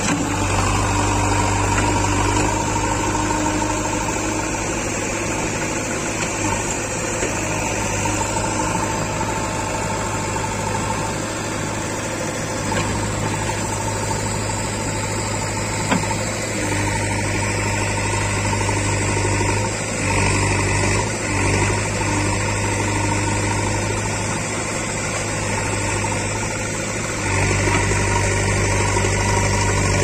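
JCB 3DX backhoe loader's diesel engine running steadily close by while the machine sits stuck in deep mud, its note shifting a few times and growing louder near the end.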